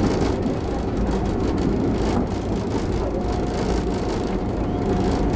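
Steady rumble of a passenger train coach running along the rails, heard from inside the coach. A faint steady whine comes in about three seconds in.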